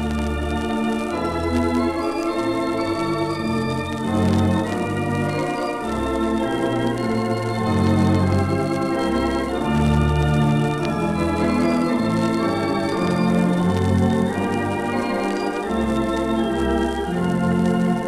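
Theatre organ playing continuous music from the Commodore Hammersmith's 3/10 Standaart organ: sustained chords over a moving pedal bass line, at the start of a medley of old popular songs. It is heard from a 1933 78 rpm record.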